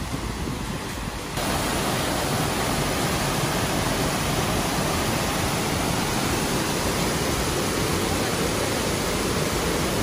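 Waterfall: a steady rush of falling water that jumps suddenly louder about a second in.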